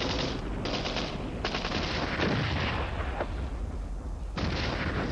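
Battle sounds on a war-footage soundtrack: dense, rapid gunfire that changes abruptly a few times.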